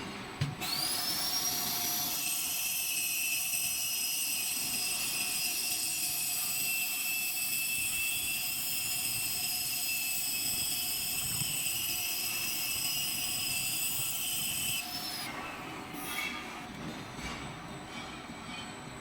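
Grinder on a lathe spinning up with a rising whine about half a second in, then running with a steady high-pitched whine until it cuts off about fifteen seconds in.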